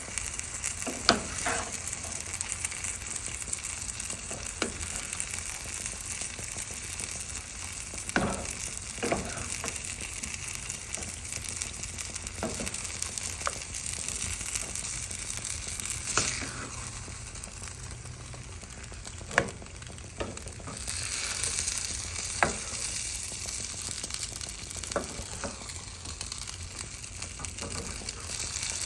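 A pot of chicken, vegetables and cream of mushroom soup sizzling steadily on the stove, with scattered clinks and knocks of a spoon stirring against the pot.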